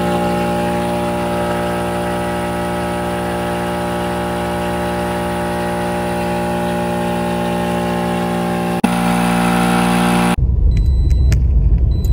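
Portable electric tyre inflator (small air compressor) running steadily as it pumps air into a punctured car tyre, with a fixed, even hum. About nine seconds in its pitch shifts slightly with a click, and near the end it gives way to a low rumble with a few clicks.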